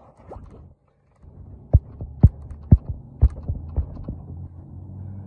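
Dull thudding footsteps, about two a second for a couple of seconds, over a low steady rumble.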